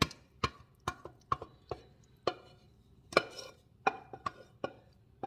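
A serving spoon knocking and scraping against the pot and baking dish as the pasta casserole is spooned across. About a dozen sharp, uneven knocks, some ringing briefly.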